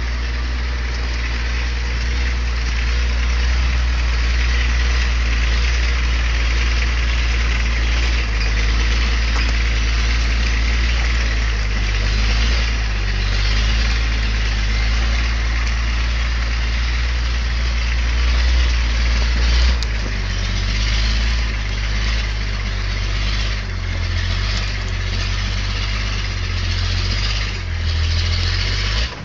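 Engine of a GMC 6x6 army truck running under load as the firewood-laden truck crawls through deep snow on chained tyres. From about twenty seconds in, its pitch rises and falls repeatedly.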